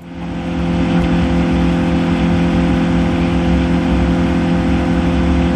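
Jet boat's outboard engine running at a steady speed, a loud, even drone that holds without change.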